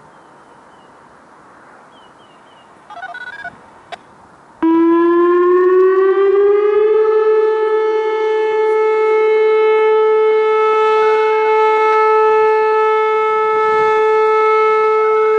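Whelen WPS 2805 electronic warning siren starting its steady alert signal. It comes on suddenly about four and a half seconds in, rises in pitch for about two seconds, then holds one loud, steady 435 Hz tone. Before it there is only quiet background with a few faint chirps.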